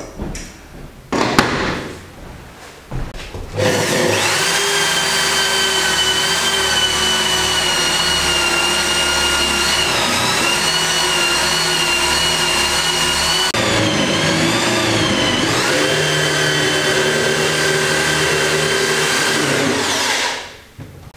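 Corded electric drill with a wood bit boring into the edge of a wooden door, running with a loud steady whine that sags in pitch twice as the bit bites, and stopping about a second before the end; it is drilling a row of holes to cut the mortise for a door lock. A few sharp knocks come first, about three seconds before the drill starts.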